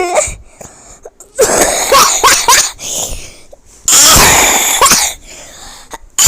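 A person's loud, distorted, breathy vocal outbursts, like coughs or sneezes. A cluster of short bursts comes about a second and a half in, then one longer burst about four seconds in.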